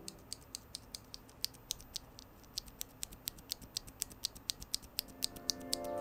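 A loose FEI Plus linear mechanical keyboard switch pressed repeatedly between the fingers, giving short, sharp plastic clicks about four times a second.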